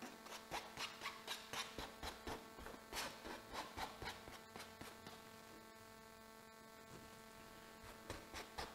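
Palette knife scraping and spreading oil paint across a stretched canvas in quick strokes, about two to three a second, pausing for a few seconds past the middle and starting again near the end, over a faint steady hum.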